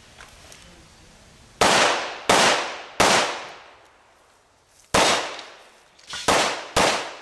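Handgun shots fired at a target: three shots about two-thirds of a second apart, a pause of about two seconds, then three more. Each crack trails off over about half a second.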